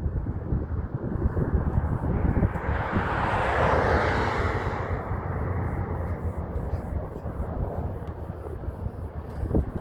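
A passing vehicle: its noise swells to a peak a few seconds in and then fades away, over a steady low rumble.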